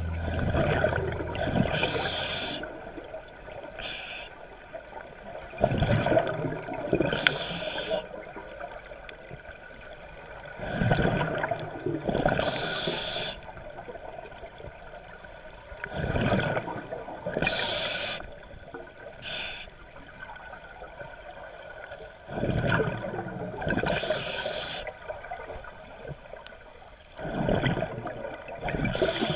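Scuba diver breathing through a regulator, heard underwater through the camera housing: slow breaths every few seconds, a hiss on each inhalation and a burst of bubbles on each exhalation.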